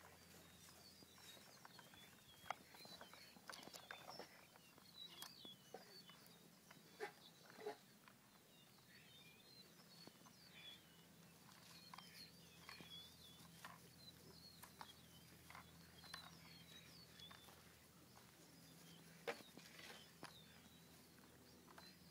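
Near silence outdoors: faint short high chirps keep coming, with scattered soft clicks and knocks as bullmastiff puppies tussle and paw at toys on grass.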